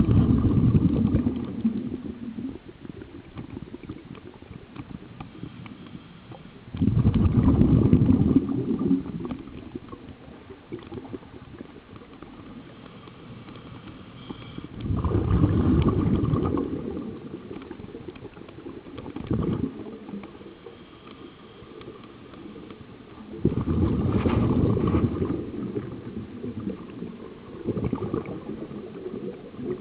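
Bubbling from a scuba regulator's exhaust as the diver breathes out underwater. There are long gurgling bursts about every eight seconds, with a couple of shorter ones between them.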